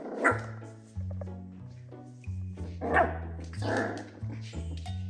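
Baby puppies barking in short loud bursts, a few times, over background music with a steady bass line.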